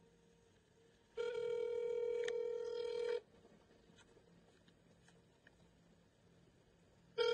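Telephone ringback tone of an outgoing call: one steady two-second ring starting about a second in, then a four-second pause, then the next ring starting near the end, the North American ringing cadence of a line not yet answered.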